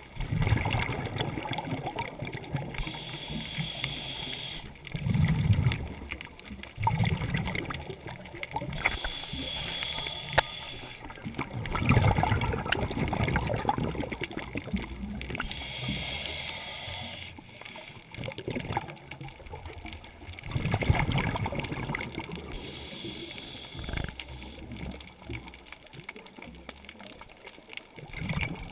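Scuba diver breathing through a regulator underwater: four breaths, each a hissing inhale through the demand valve followed by a low, gurgling rush of exhaled bubbles, repeating about every six to seven seconds.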